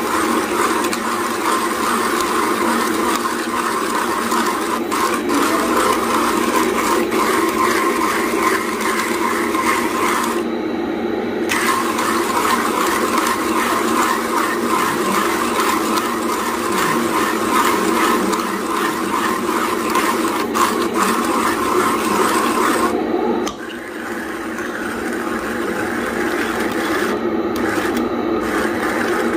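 Hand-cranked burr coffee grinder grinding whole coffee beans, a steady crunching grind from the turning crank. It dips briefly about three quarters of the way through, then carries on.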